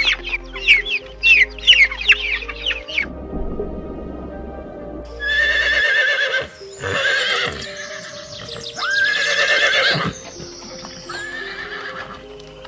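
Horses neighing: several long whinnies with a shaking, wavering pitch, over background music with held notes. A run of short, quick calls comes in the first few seconds.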